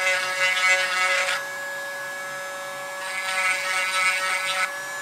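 A Dremel rotary tool runs at a steady whine while its bit grinds out the inside of a 3D-printed PLA part's bore, shaving off excess plastic that makes the fit onto the shaft too tight. The grinding comes in two spells: one at the start, and one from about three seconds in until shortly before the end.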